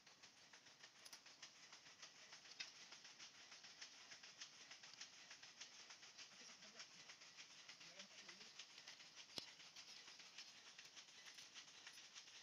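Near silence: faint outdoor background with continuous fine ticking, a few faint voice-like sounds, and one sharper click about nine seconds in.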